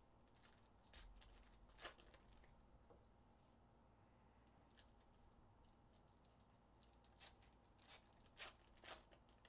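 Faint crinkling and tearing of foil trading-card pack wrappers being handled and ripped open, in short bursts: a few about a second in, one near the middle and several near the end.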